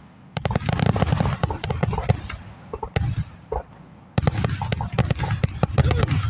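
Fireworks finale barrage: rapid, overlapping bangs and crackles, a short lull about three seconds in, then another dense volley.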